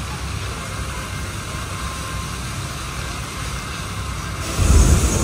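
Water jets of the Wynn Macau lake fountain spraying: a steady rushing noise over a low rumble, broken by a sudden loud low thud near the end.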